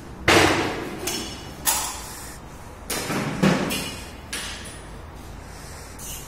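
A series of irregular knocks and bangs, about seven in six seconds, the first the loudest.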